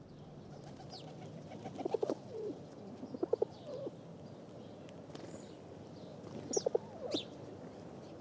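Birds calling: three short phrases of low, pulsing calls, with a few brief high chirps in between.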